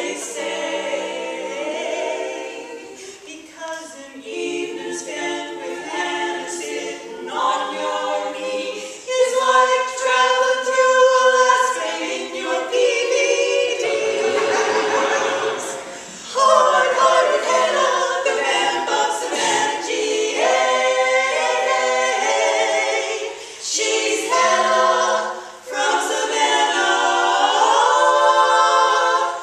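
Women's quartet singing a cappella, four female voices in harmony with phrases rising and falling and brief breaks between lines.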